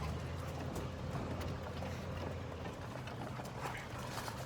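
Golf cart running with a steady low hum and small rattles.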